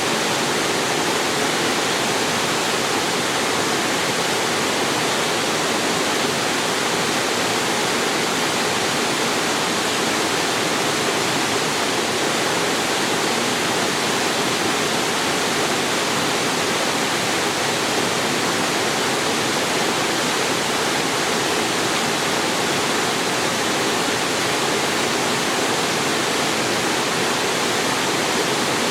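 Waterfall pouring into a mountain stream: a steady, even rush of falling water.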